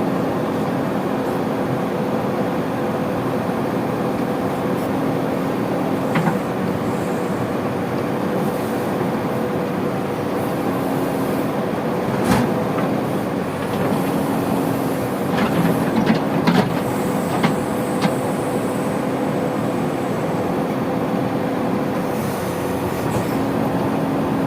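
Heavy diesel engine running steadily under work, with a few sharp clanks and knocks scattered through, loudest in a cluster past the middle.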